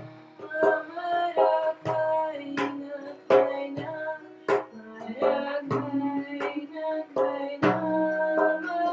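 A woman singing to a guitar, with strummed chords struck about every half second to second.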